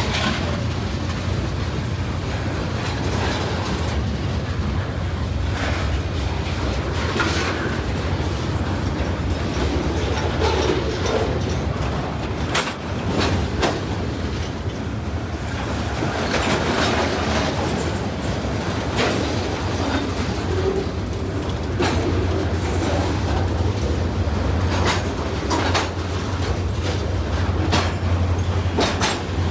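Freight cars of a mixed train rolling past close by, their wheels clicking irregularly over the rail joints over a steady low rumble.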